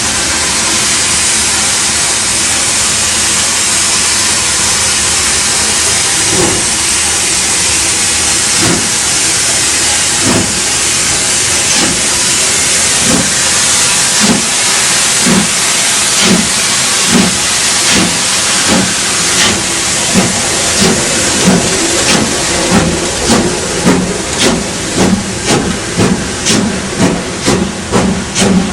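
Steam locomotive starting away: a steady hiss of steam, then exhaust chuffs that begin about six seconds in and come faster and louder, reaching about two a second near the end.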